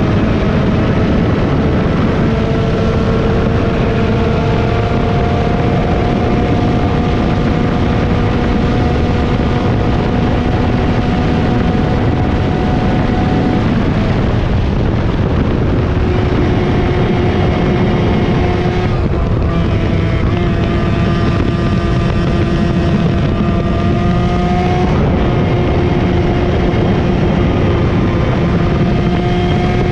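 Yamaha KT100 single-cylinder two-stroke kart engine running hard at race pace. Its pitch climbs slowly for the first half, drops sharply about halfway through as it comes off the throttle, then runs lower with a few changes before pulling up again near the end.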